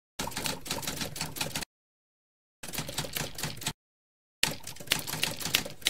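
Typing sound effect: rapid key clicks in three bursts, with dead silence between them.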